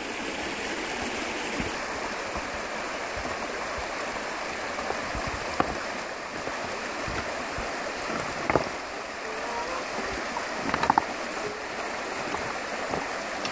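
Creek water rushing steadily, a continuous even hiss of flowing water.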